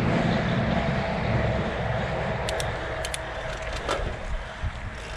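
Mountain bike rolling along the trail, a steady rumble of tyres and wind that fades over the few seconds, with a few sharp clicks and rattles about halfway through.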